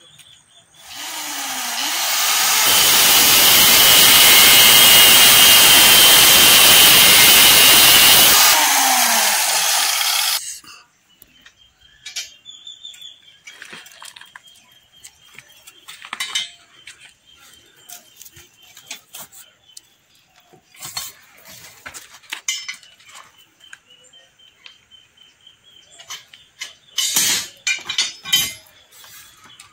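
An angle grinder spins up, cuts through steel rebar for about eight seconds and winds down. Then come scattered metallic clinks and taps as the rebar is bent with a hand bending bar, with a quick run of clinks near the end.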